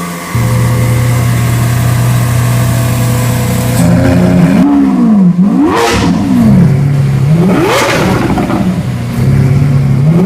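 Lamborghini Aventador LP700-4 Roadster's 6.5-litre V12 idling steadily, then revved several times in quick blips, the pitch rising and falling with each one.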